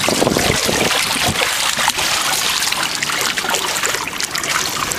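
Water splashing and trickling alongside the hull of a small sailboat as it moves through the sea, a continuous rush with many short splashes.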